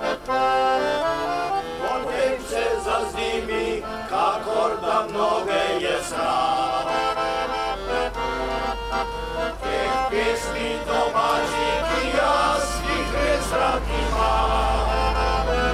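A mixed choir of older men and women singing a song together in several voices.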